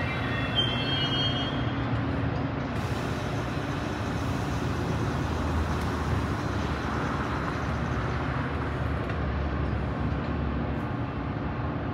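Metra commuter train pulling away: a steady low rumble of the diesel locomotive and the rolling cars, with a brief faint high ringing tone about a second in.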